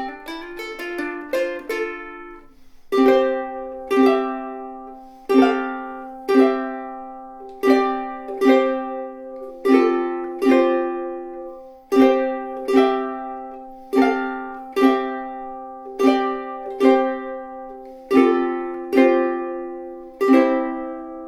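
Millar SP-210LL all-solid long-neck soprano ukulele played solo: quick fingerpicked notes for about the first two seconds, then slow strummed chords roughly one a second, each left to ring, with the last chord ringing out near the end.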